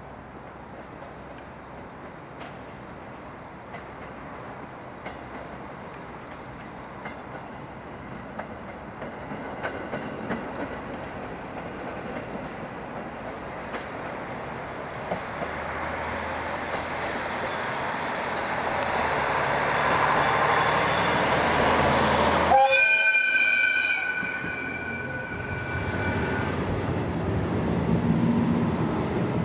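JR Hokkaido KiHa 40 single-car diesel railcar approaching, its diesel engine and wheels on the rails growing steadily louder. About three-quarters of the way through it sounds one long, loud horn blast lasting about three seconds, then the engine rumble carries on as it passes.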